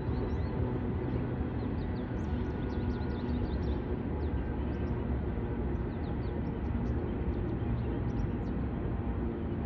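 Freight train rolling past slowly: a steady low rumble of wheels on rail, with many brief faint high squeaks scattered through it.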